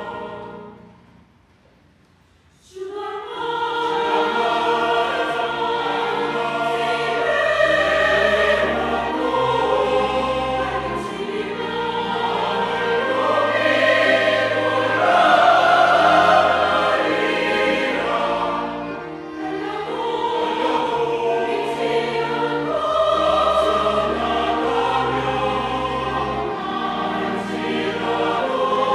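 Mixed-voice church choir singing in Korean with instrumental accompaniment, a clarinet among it. The music fades away just after the start, stops for about a second and a half, then the choir comes back in suddenly.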